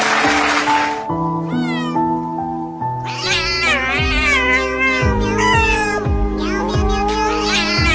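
A cat meowing in long, wavering cries over slow background music of sustained keyboard notes, with a short hiss in the first second and the meowing strongest from about three seconds in.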